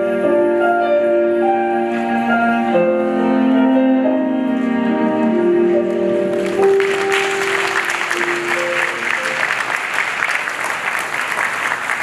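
Slow music with long held notes ends about halfway through and gives way to an audience applauding.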